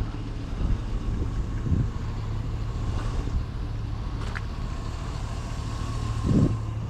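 Pickup truck engine running with a steady low hum, heard from inside the cab, with a brief pitched sound near the end.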